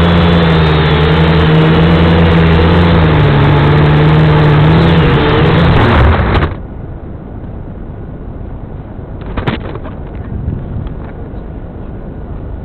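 V222 FPV drone's motors and propellers whining, the pitch wavering up and down as the throttle changes. About six and a half seconds in the motor sound cuts off abruptly, leaving a faint hiss with a single short click a few seconds later.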